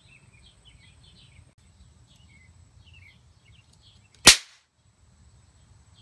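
A single loud, sharp crack about four seconds in: a high-voltage spark discharge as a bank of three charged microwave oven capacitors is shorted.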